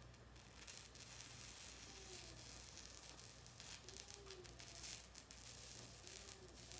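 Faint sizzling and crackling from a thick iron plate being seasoned with oil over a wood fire.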